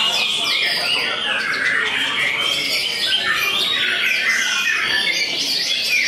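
White-rumped shama (murai batu) in full contest song: a continuous stream of quick whistled notes and slurs, overlapping with other caged songbirds singing at the same time.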